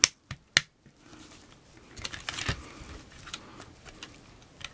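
Hard plastic clicking as the roof piece of a Playmobil toy quad is pressed and snapped into place. Two sharp clicks come in the first half-second, followed by softer clicks and rattling of the plastic as the toy is handled.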